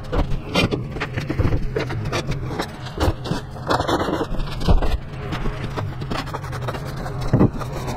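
An electric reciprocating-blade saw running and cutting through the box truck's wall: a steady motor hum under rough, uneven rasping strokes.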